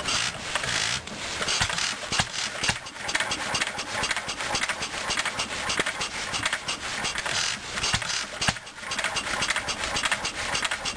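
McCormick-Deering type M 1½ hp single-cylinder stationary gas engine, converted to hit-and-miss governing and set up to run in reverse, started by hand on its flywheel and running with a rapid, continuous string of sharp knocks.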